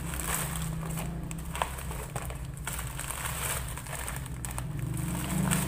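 Crinkling and rustling of plastic packaging as small snack packets are pulled out of a large clear plastic bag, in many short crackles. A steady low hum runs underneath.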